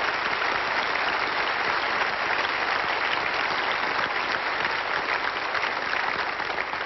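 Audience applauding, a dense, steady clapping that eases slightly near the end.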